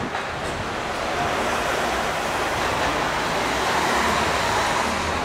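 A passing road vehicle: a rush of traffic noise that swells to its loudest about four seconds in, then eases off.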